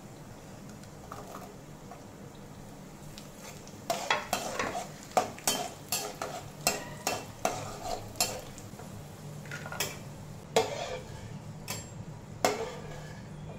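A steel spatula stirring cashews frying in oil and ghee in a kadai, with a frying sizzle. From about four seconds in, the spatula strikes and scrapes the pan in a run of sharp metal clinks, about two a second, ending a little before the end.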